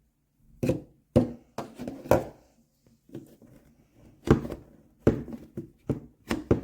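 An irregular series of about a dozen sharp knocks and clicks, as of hard objects handled and set down on a surface, with brief silences between.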